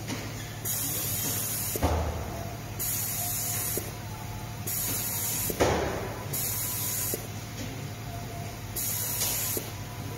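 Pick-and-place machine running: short hisses of air from its pneumatic pick-up, each about a second long, repeating roughly every one and a half seconds over a steady machine hum. Two thumps, about two seconds and five and a half seconds in.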